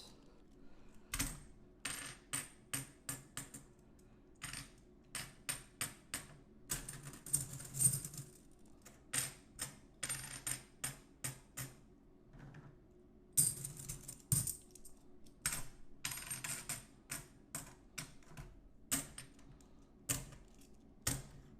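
Silver Franklin half dollars clinking against one another as they are handled and stacked: a string of sharp metallic clicks, with a few denser runs of jingling.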